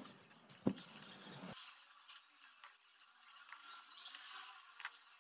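Faint clinks and scrapes of a metal spoon against a glass bowl, with two sharper clicks, one just under a second in and one near the end.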